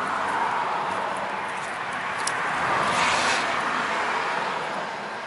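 Electric radiator cooling fan of a 2004 Toyota Highlander running with a steady rush of air, swelling slightly about three seconds in and easing near the end. The fan is stuck on with the car shut down, the fault being traced with a test light.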